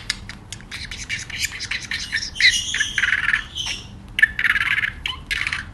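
Budgerigar chirping and chattering: quick short chirps at first, then two longer bursts of busy warbling chatter.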